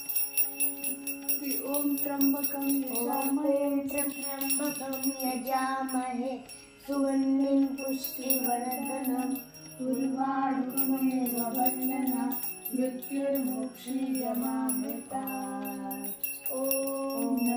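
Devotional background music: a melody of held notes over a continuous ringing of small bells.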